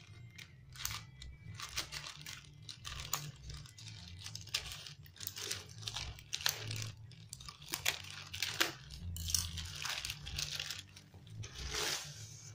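A polythene courier mailer bag being cut open with scissors and torn by hand: irregular crinkling, rustling and tearing of the plastic, with a louder rustle near the end as the bag is pulled back from the box.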